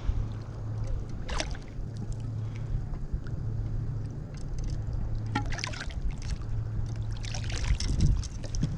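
Small water splashes and dripping around a kayak, with a few short knocks and rustles from handling, over a steady low rumble.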